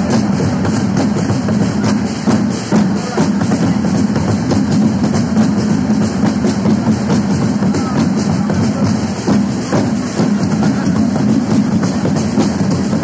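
Live drums and other percussion beaten in a dense, steady rhythm, with a deep bass drum under it, accompanying a street dance performance.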